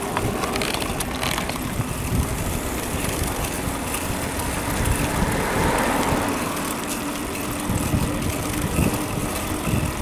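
Riding noise from a bicycle on a paved road: wind buffeting the microphone and tyre noise, with a steady low hum and a swell of noise about halfway through.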